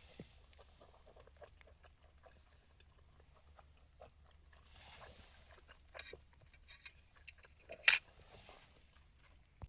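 Small handling noises: scattered light clicks and rustles, with one loud, short crunch just before 8 seconds in.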